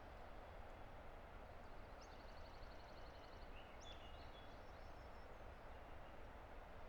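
Distant river rushing steadily, with a songbird's rapid high trill about two seconds in and a few short chirps just after.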